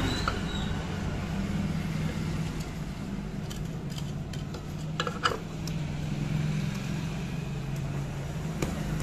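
Steady low hum of vehicle engines running in the background, with a few sharp metallic clicks about halfway through and again near the end as engine parts are handled and fitted.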